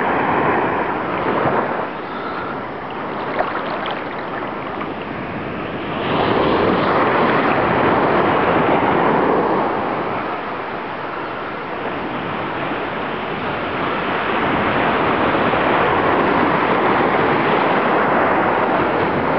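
Rushing, splashing water churned up by a moving boat, with wind buffeting the microphone. It swells louder about six seconds in, eases off briefly, then rises again for the second half.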